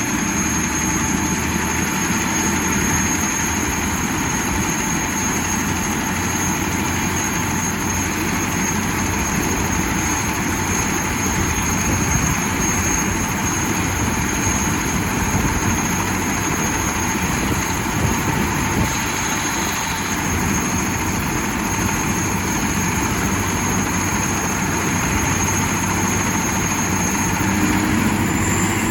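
Rescue helicopter's turbine running steadily with its rotor turning, a high constant whine over a loud rumble; the whine rises slightly near the end.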